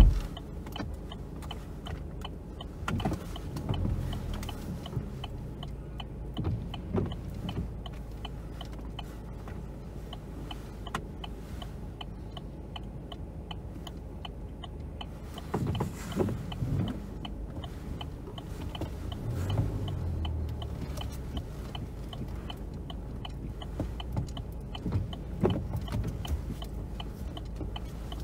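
A car's turn-signal indicator ticking evenly over the low hum of the car's cabin, with a few low rumbles along the way. A sharp knock sounds right at the start.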